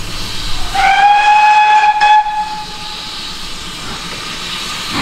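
Steam locomotive whistle, one blast of about two seconds starting a little under a second in, sliding up in pitch as it opens. A steady hiss of steam runs underneath.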